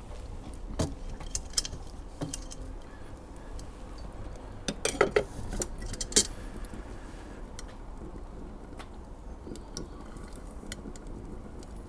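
Ghillie storm kettle being tended over a small wood fire: scattered sharp clicks and crackles, with a few light metallic knocks about five and six seconds in as the kettle is handled.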